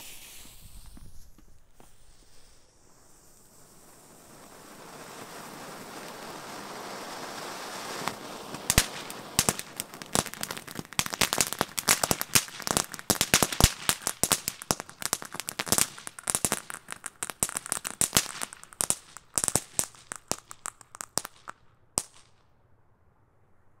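World Class Fireworks Frog Prince fountain firework burning. It starts with a spurt of sparks and a hiss, the spray hiss swells over the next few seconds, and from about nine seconds in it turns to rapid crackling that stops suddenly a couple of seconds before the end.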